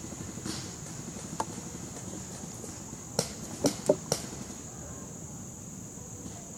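Airsoft fire: a single sharp snap about a second and a half in, then four sharp snaps in quick succession a little past halfway. Under them runs a steady high hiss.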